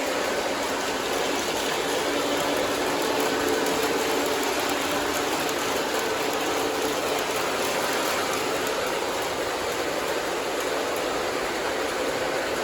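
O-gauge model trains running on the layout, among them Lionchief Santa Fe locomotives: a steady mix of motor hum and wheel-on-rail noise with a faint constant tone.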